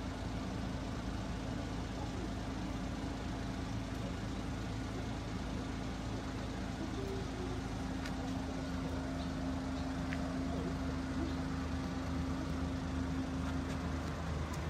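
A steady low mechanical hum with a held low tone and a rumble underneath, running without change, in the manner of a machine or engine running nearby.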